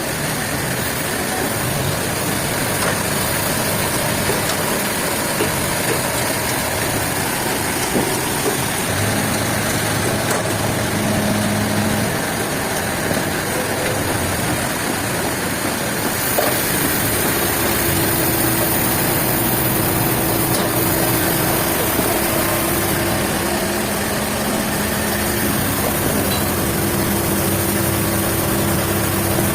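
A heavy engine running steadily, its hum changing pitch a couple of times.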